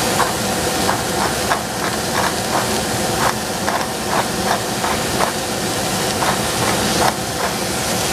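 Sliced onions frying in a stainless steel pot with a steady sizzling hiss, while a hand-turned pepper mill is twisted over the pot, giving a run of short grinding clicks, about two a second, that stop near the end.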